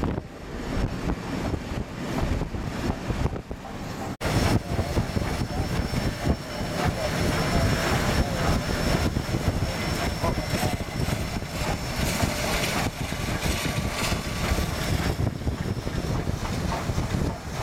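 Union Pacific 844, a 4-8-4 FEF Northern steam locomotive, running at speed close by: a steady, dense rumble of exhaust and running gear. The sound cuts out for an instant about four seconds in.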